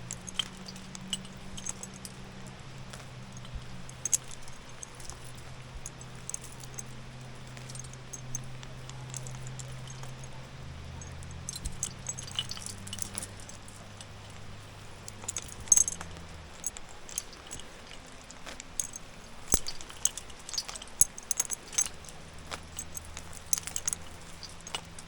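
Metal climbing gear (carabiners and protection racked on a harness) clinking and jingling in scattered bursts, busiest in the second half.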